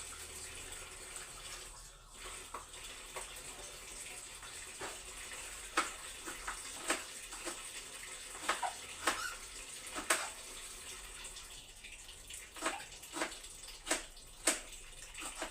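Water running from a kitchen tap into the sink, with frequent light clinks and knocks of items being handled and washed under it, coming thicker from about five seconds in.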